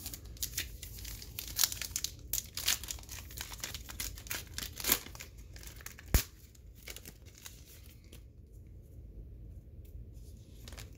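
Crinkling and tearing of a baseball card pack's wrapper as it is opened, with a single sharp tap about six seconds in; the rustling thins out after about seven seconds.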